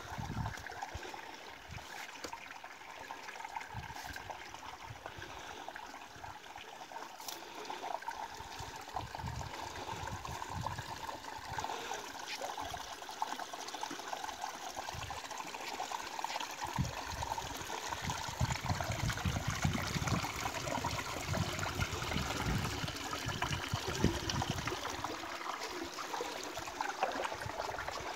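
Shallow river water trickling and gurgling over and around rocks, steady throughout, with bursts of low rumble in the second half.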